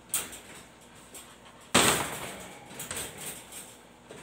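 Ube pandesal dough being kneaded by hand on a floured plastic sheet over a wooden table. A loud thump comes a little under two seconds in and trails off over most of a second, with lighter knocks and rubbing before and after.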